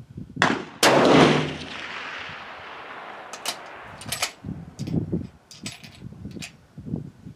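A Savage 10FP-LE bolt-action rifle in .308 Winchester fires one shot about a second in. The report echoes and dies away over the next couple of seconds. Several short, sharp clicks follow.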